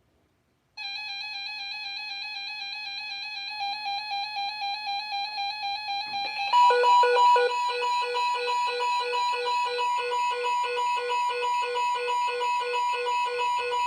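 Weather-radio alert tones announcing a severe thunderstorm warning. A steady electronic tone starts about a second in and begins to pulse, then about six and a half seconds in a louder steady tone near 1 kHz, the NOAA Weather Radio warning alarm tone, sounds over rapid beeping.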